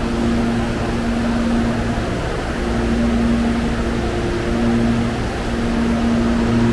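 Steady electric-train hum with a few constant low tones and no clear knocks or changes in pace.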